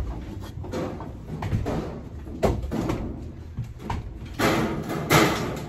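Handling noise: irregular rustling, crinkling and knocking of work materials, loudest in two bursts about four and a half and five seconds in.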